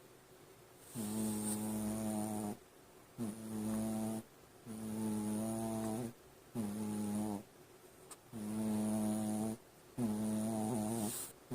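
Shih Tzu snoring loudly in its sleep, a sound likened to a construction site: a regular series of six buzzing snores, each about a second long, with short pauses between breaths.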